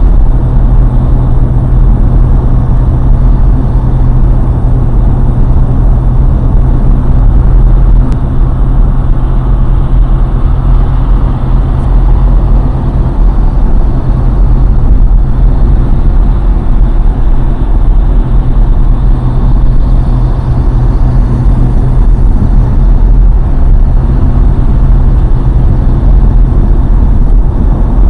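Steady, loud low rumble of road vehicle noise with a constant low hum, unbroken throughout.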